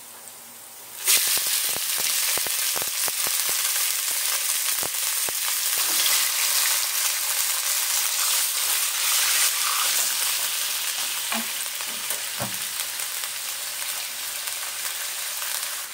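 Sliced beef omasum dropped into hot oil with garlic and ginger in a wok. About a second in it breaks into a sudden loud sizzle, crackling and spitting hard for the first few seconds, then settles to a steady sizzle as it is stirred with a wooden spatula.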